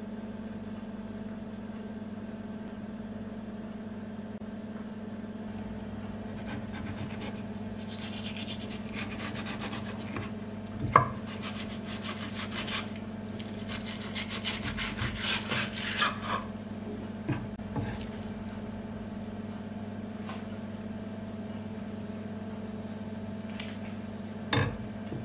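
Kitchen knife scraping and sawing along a sea bass fillet's skin against a plastic cutting board as the skin is cut away, a run of scratchy strokes through the middle of the stretch with one sharp knock about eleven seconds in. A steady low hum runs underneath.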